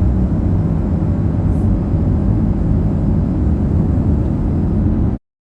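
Steady low rumble of a car being driven, cutting off abruptly near the end.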